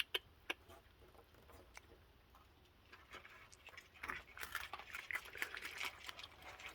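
Raccoons eating cookies: a few faint clicks, then from about four seconds in a thick run of small crunches and crackles as they chew.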